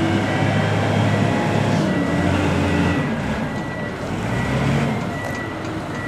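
Diesel engine of a Kalmar DCD150-12 15-tonne heavy forklift running as the machine drives, its pitch rising and falling. A high beep sounds repeatedly at intervals over the engine.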